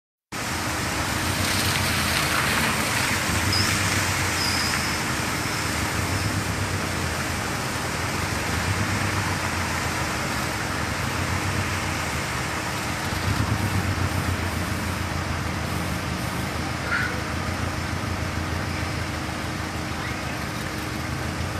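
Steady hiss of rain, with the low rumble of cars driving through water on a flooded street.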